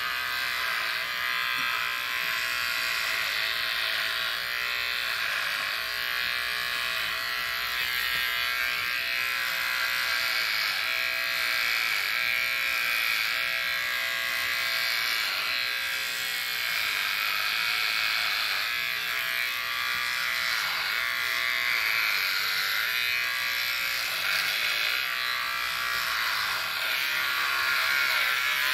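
Corded electric hair clippers running continuously as they cut the hair at the side of the head, a steady buzz whose pitch wavers slightly.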